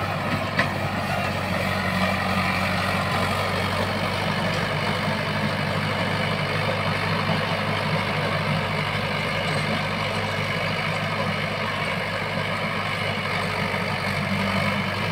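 Swaraj tractor's diesel engine running steadily under load, driving a Shaktiman rotavator whose blades churn the soil. A single sharp click about half a second in.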